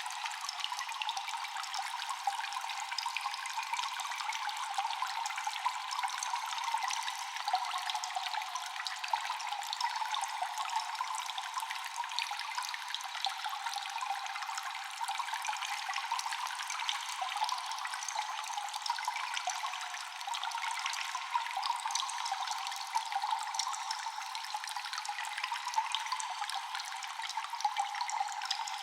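Water dripping and trickling in a cave, with an echo: a dense, constant patter of many small drips over a steady watery wash, thin and without any deep sound.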